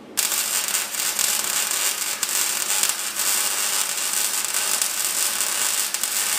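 Electric arc welding on steel square tubing: the arc strikes about a quarter second in, then one continuous weld run gives a steady, loud crackling hiss.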